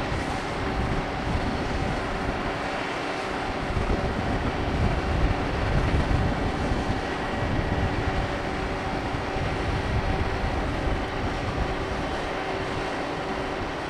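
Steady machinery drone from a large cruise ship, several fixed hum tones over a broad rumble. Wind buffets the microphone, strongest around the middle.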